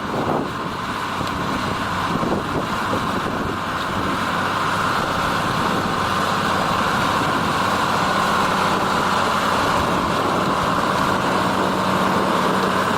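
John Deere 3650 tractor's diesel engine running steadily while ploughing, growing a little louder over the first few seconds and then holding even.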